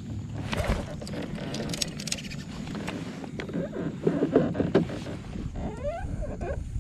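Handling sounds of a spinning rod and reel, with scattered clicks and a busier patch of rattling as the reel is worked. Near the end come several short animal calls that rise and fall in pitch.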